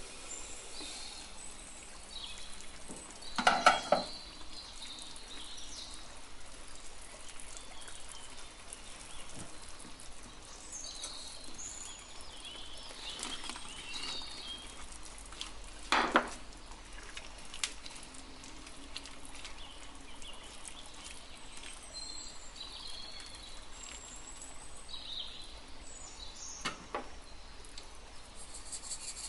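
Chicken and shredded carrot simmering in a frying pan with a steady low sizzle, broken by clinks of cookware: a loud one about three and a half seconds in, another around sixteen seconds as sliced mushrooms are tipped in from a wooden bowl, and a lighter knock near the end.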